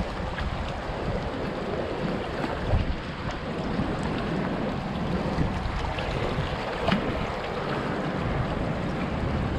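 Steady rushing of fast floodwater, with wind buffeting the microphone.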